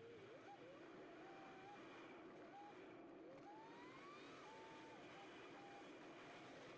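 Faint vehicle noise: a steady hum with a thin whine that repeatedly rises, holds and falls in pitch.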